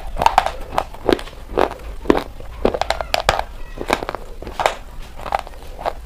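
Biting and chewing crunchy white chalk sticks: a quick, irregular run of sharp crunches and crackles.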